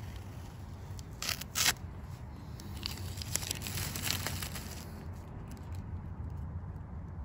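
Blue masking tape and a plastic drop cloth, coated in still-tacky Flex Seal spray rubber, being peeled off a wooden table leg. There are two short rips about a second in, then crinkling and rustling of the plastic.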